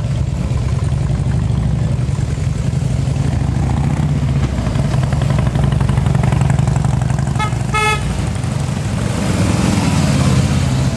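Harley-Davidson motorcycle V-twin engine rumbling steadily, with two short horn toots about seven and a half seconds in.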